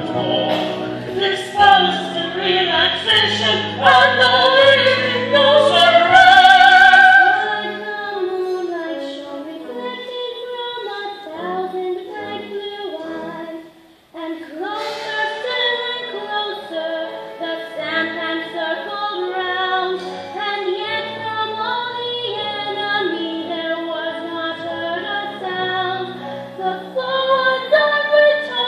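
Live stage-musical singing with accompaniment, led by a woman's voice in an operatic style. It is loudest and fullest for the first several seconds, breaks off briefly about halfway through, then carries on more softly.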